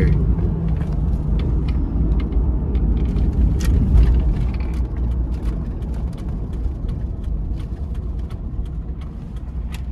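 Pickup truck cabin noise while driving: a steady low engine and road rumble, with scattered small clicks and rattles, getting a little quieter near the end.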